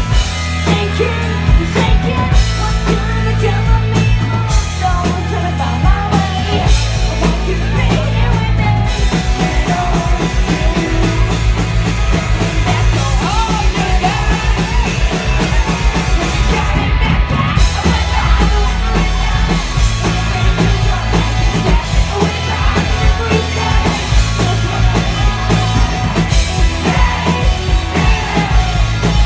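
Live punk-pop band playing: a woman singing lead over electric guitar and drum kit, heard from the audience floor of a small club.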